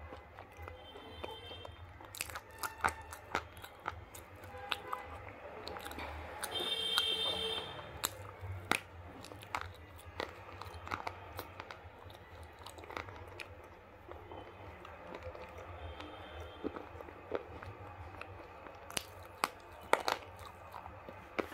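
Slate pencils being bitten and chewed: sharp, irregular crunches and cracks, with chewing in between and one especially loud crack near the end.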